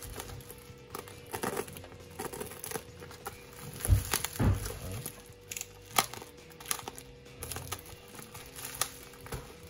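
Plastic wrap and bubble wrap on a package crinkling and rustling as it is handled and slit with a box cutter, with irregular clicks and a couple of dull knocks about four seconds in.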